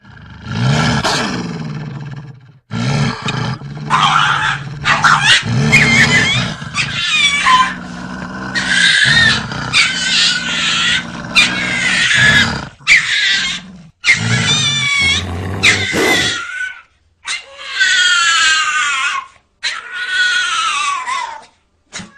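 An animal fight: a dog yelping and screaming in distress over deep growling, in a string of loud outbursts with short breaks. Near the end come a few long, high cries that fall in pitch.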